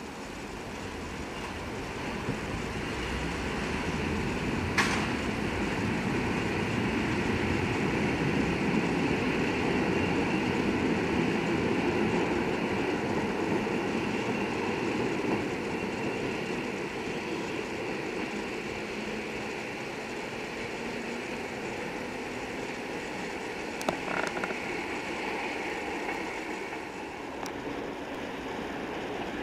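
PKP class EN57 electric multiple unit pulling away, its traction motors and wheels running louder over the first ten seconds and then slowly fading as it moves off. A sharp click about five seconds in.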